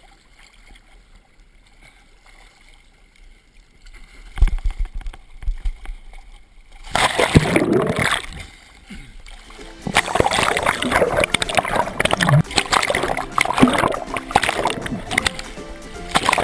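Ocean water splashing and sloshing around a head-mounted GoPro Hero2 as a swimmer swims. It is muffled and quiet for the first few seconds, with a few low thumps about four seconds in, then loud, irregular splashing from about seven seconds on.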